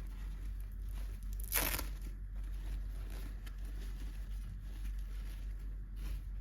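Packaging being handled and torn open by hand, with one short, loud rip about one and a half seconds in and fainter crinkling around it, over a steady low hum.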